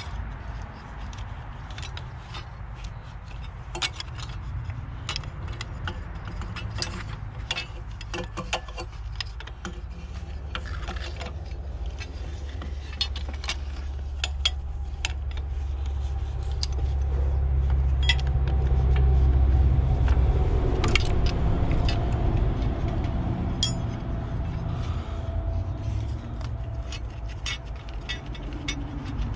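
Wrenches and metal tools clinking and ticking against engine fittings while a fastener is worked loose, in many short irregular clicks. A low rumble swells up through the middle.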